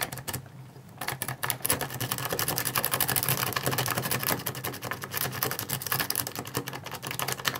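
A Sparrows worm rake being scrubbed rapidly in and out of a 6-pin Trioving switch lock under tension, a dense run of fast metallic clicks as it bounces the pins. It starts about a second in. The raking is meant to bring the lock back into a false set.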